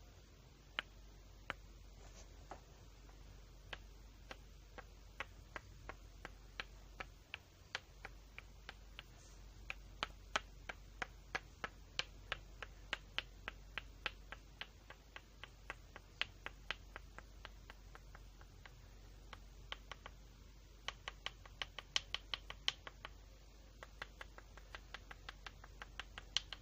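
A long series of sharp clicks or snaps, one to three a second, busiest through the middle and again in a quick run near the end.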